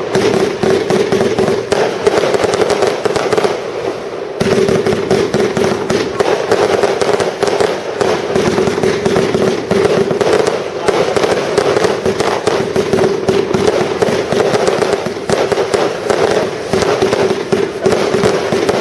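Fireworks display firing a dense, continuous barrage of rapid bangs and crackling shots.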